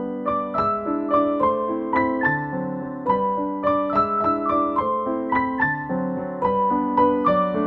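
Piano music: a gentle waltz played as a steady run of single notes over held lower notes.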